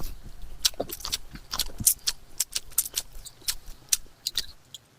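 Eating sounds close to the microphone: irregular clicks and small crunches of chewing, a few a second, thinning out near the end.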